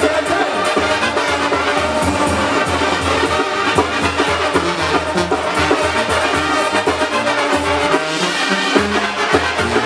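Mexican banda playing live through a PA: trombones, clarinets and sousaphone over drums and cymbals, with a steady beat. The bass drops out briefly about eight seconds in.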